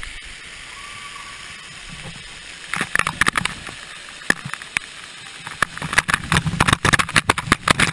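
Water pouring down onto a waterproof action camera, a steady rushing hiss that turns, about three seconds in, into a rapid run of sharp splashes and hits on the housing.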